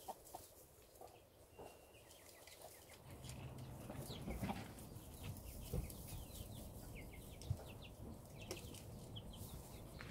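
Chickens clucking faintly, with many short, high chirps from about two seconds in to the end.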